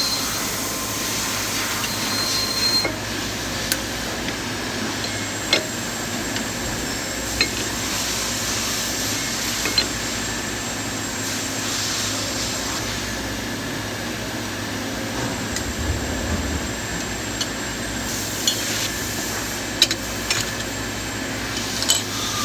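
Scattered light metallic clicks and clinks of tools and small metal parts on a pneumatic diaphragm valve actuator, as its retention clip is worked off, over a steady background hiss.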